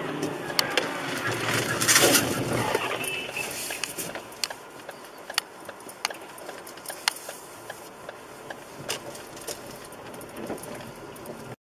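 Car running off the road onto the rough verge, heard from inside the cabin: a loud rushing burst about two seconds in, then a run of sharp knocks and rattles over a duller rumble.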